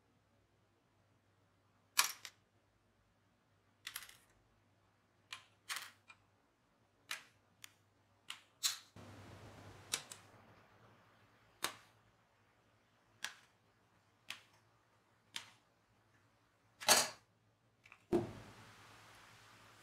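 Sharp plastic clicks and snaps, irregularly spaced about a second apart, as styrene kit parts are nipped off their sprues with a sprue cutter and the sprue frames are handled. The loudest snaps come about two seconds in and again near the end.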